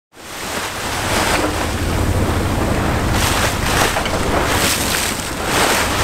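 Seawater rushing and splashing along a sailing ship's hull as it moves under way, with wind buffeting the microphone. The sound fades in from silence at the start, and the swash surges several times in the second half.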